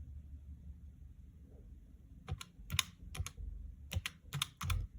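Keys being tapped: about six separate sharp clicks in the second half, as a sum is keyed in to work out the month's increase.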